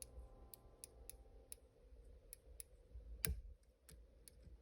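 Faint, irregular metal clicks of a lock pick and tension tool working inside a Robur safe deposit lock as the side pins are probed, with one sharper click about three seconds in.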